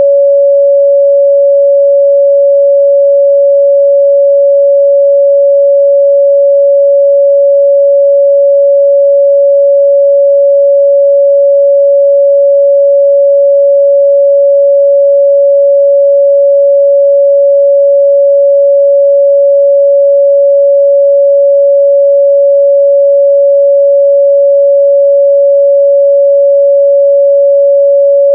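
A steady, loud 562 Hz sine-wave test tone: one pure, unchanging midrange pitch with no overtones.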